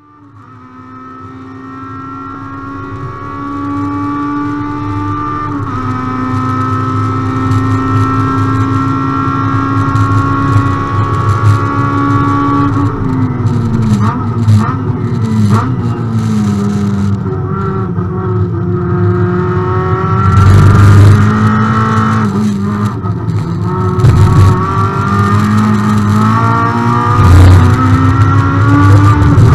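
Proton Iriz R3 touring car's race-prepared 1600cc naturally aspirated Campro four-cylinder engine, heard from inside the cockpit, held at high revs under full throttle. The sound fades in over the first few seconds. About halfway the pitch falls through downshifts under braking, then climbs again as the car accelerates. Sharp cracks sound over the engine in the second half.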